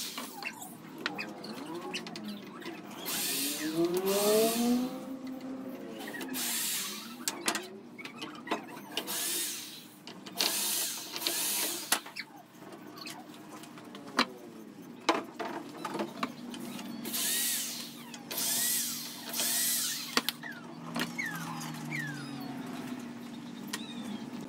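Power drill run in repeated short bursts into the wooden frame, its motor pitch rising and falling as the trigger is squeezed and released. Knocks and clicks of wood and tools being handled come in between.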